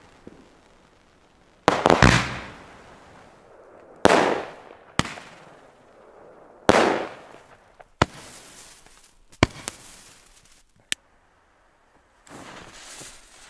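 Shots of a fireworks battery: about eight sharp bangs spread over some ten seconds, the first few loudest, each with a long fading tail, the later ones shorter and thinner. Near the end a steady hiss starts as a stick rocket is lit with a gas burner.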